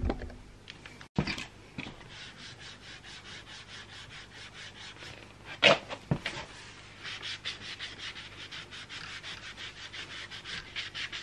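Cloth rag rubbed back and forth over the dull cast aluminium of a BMW K100 motorcycle, polishing off a metal cleaner, in quick rhythmic strokes that grow stronger in the second half. A single sharp tap sounds about halfway through.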